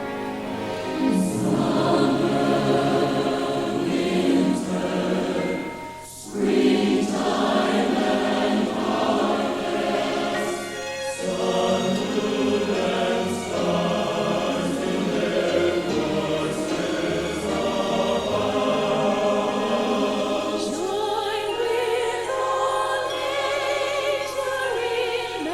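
A choir singing a Christmas choral arrangement, with a brief break about six seconds in before the voices come back in full.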